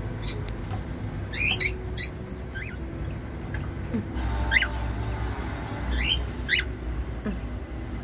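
Cockatiels chirping: a handful of short, sharp calls about a second apart, some sweeping up in pitch and some down, over a low steady hum.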